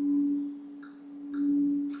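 Tuned metal healing pipe ringing one steady low tone that swells and fades twice, with faint higher overtones, sounded as a healing frequency.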